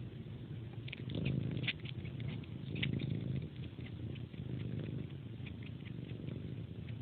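A cat suckling on a person's hand as if on a pacifier: quick wet sucking clicks and smacks over a continuous low purr that swells and fades with its breathing. The clicks come thickest in the first few seconds, then thin out.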